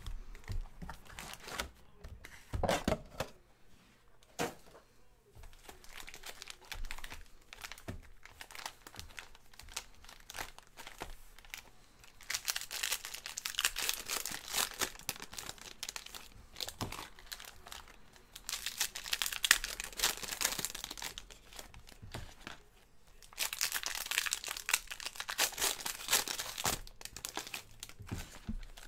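Foil trading-card packs from a box of 2018 Elite Draft Picks football cards being torn open and crinkled by hand, in several spells of crinkling. A couple of knocks of the box being handled about three seconds in.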